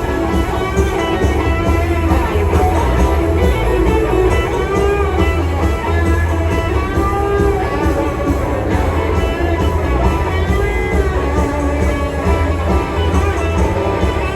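Rock music led by guitars, with strummed chords over a steady, heavy bass.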